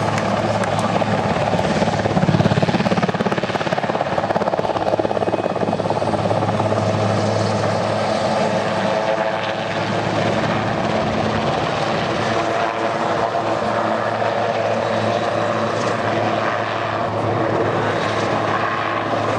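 HH-3F Pelican helicopter flying past low, its main and tail rotors and twin turboshaft engines making a steady, loud beat. The sound peaks a couple of seconds in and stays strong throughout.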